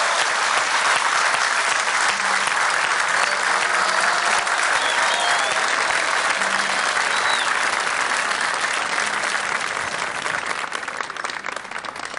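Studio audience applauding steadily, the clapping thinning out near the end.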